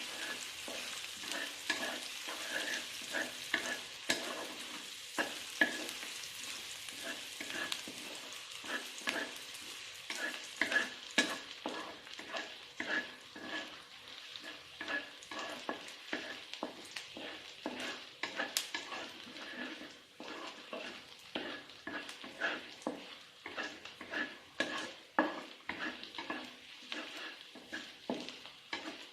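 Food frying in hot oil in a pan, sizzling while it is stirred with a spatula. The utensil clicks and scrapes against the pan a few times a second, and the sizzle is loudest at first and fades as the stirring goes on.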